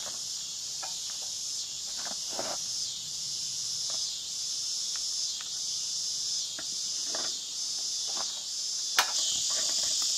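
Steady, high-pitched chorus of insects trilling, with a few soft knocks and one sharp click about nine seconds in.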